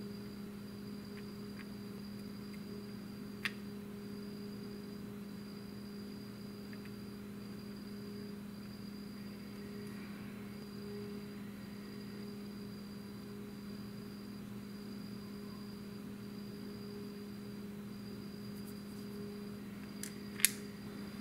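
Steady electrical hum of a small workroom with a faint, evenly pulsing high-pitched tone above it. One small click about three seconds in and a sharper, louder tap near the end, from plastic model parts and a glue applicator being handled on the work surface.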